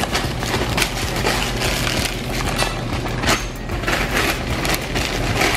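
Crinkling and rustling of paper and plastic food packaging close by, a dense run of small crackles, over a steady low electrical hum.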